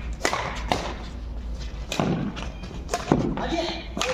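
Badminton rackets striking a shuttlecock during a rally: a series of sharp smacks at irregular intervals, about five or six in all.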